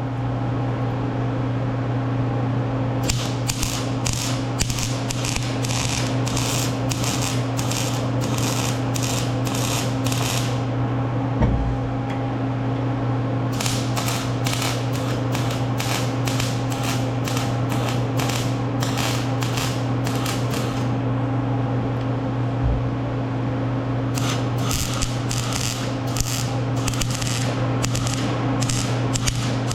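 A steady mechanical hum, with three long runs of sharp, even clicking at about two clicks a second.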